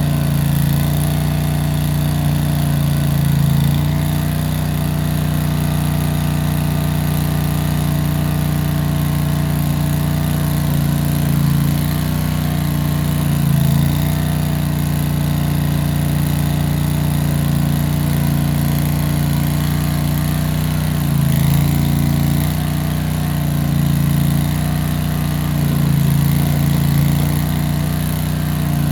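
Case 1816 skid steer engine running steadily while working. Its level swells briefly several times as the engine takes load or is revved.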